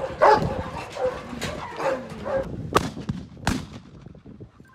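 A dog barking repeatedly for about two and a half seconds, then two sharp rifle shots under a second apart.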